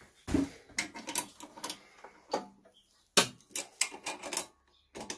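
Ratchet wrench clicking in a run of sharp, irregular clicks as the centre bolt holding the clutch onto the engine's tapered, keyed shaft is tightened.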